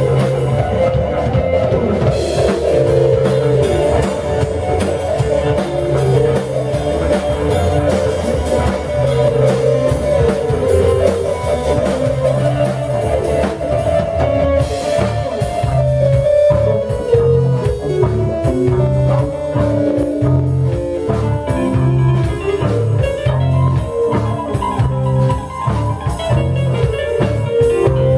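A band playing instrumental progressive rock live: a drum kit keeps a steady beat under a repeating bass figure, with a melodic lead line above.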